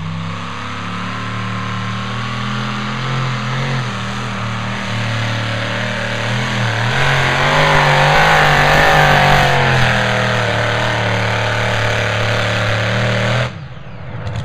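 A modified pulling tractor's engine runs at full power as it drags a weight-transfer sled down the track. It grows loudest about halfway through, its pitch wavering as it labours, then cuts back sharply near the end as the pull finishes.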